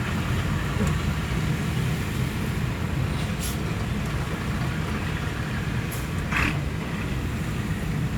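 Road traffic: a steady low rumble of vehicle engines, with a few brief sharp sounds about three and a half, six and six and a half seconds in.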